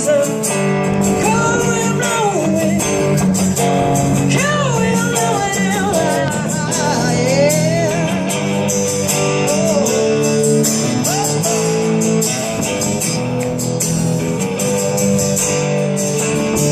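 Live acoustic band music, likely an instrumental break in the song: strummed guitar chords with tambourine and a wavering lead melody line.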